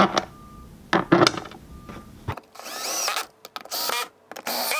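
A cordless drill-driver drives screws into a plastic mast gate on a sailing dinghy hull in three short whirring bursts, its pitch rising and falling with each run. Before that, in the first half, there are a few sharp knocks and clicks as the screws are handled and set in place.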